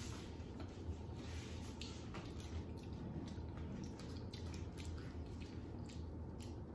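Soft, scattered clicks and small rustles of people eating fried food with fingers and plastic forks from paper wrappers, over a steady low hum.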